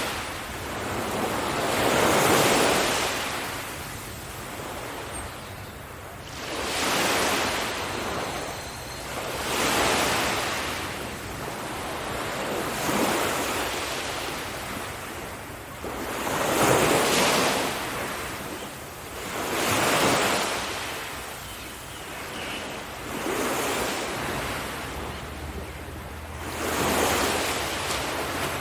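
Waves breaking on a sandy beach, each surge rising and washing back, about every three to four seconds.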